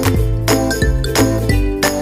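Background music with a steady beat, bass and bright chiming notes.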